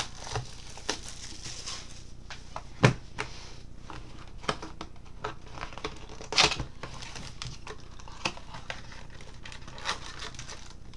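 Baseball card pack wrappers crinkling and being torn open, with cards handled in between; the crackling comes in short sharp rustles, the loudest about three and six and a half seconds in.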